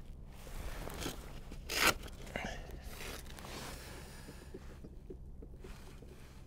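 Handling noises of clothing and a buoyancy aid rustling as a phone is pulled out and fiddled with, with one louder short scraping rasp a little under two seconds in.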